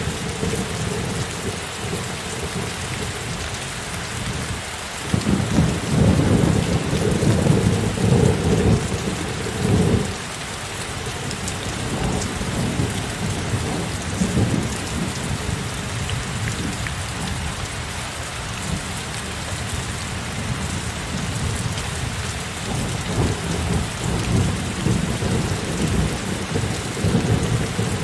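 Heavy rain falling steadily, with a rumble of thunder swelling about five seconds in and dying away about five seconds later, and further thunder rumbling near the end.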